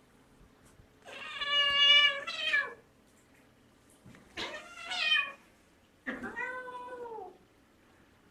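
Siamese cat meowing: three long, drawn-out meows, each falling in pitch at its end.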